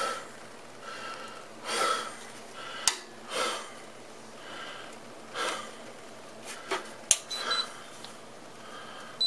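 A man breathing audibly through his nose close to the microphone, about one breath every second and a half, with a few sharp clicks from hands handling a power inverter's metal casing.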